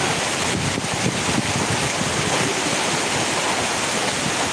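Steady rushing hiss of rain and flowing floodwater, with wind buffeting the microphone.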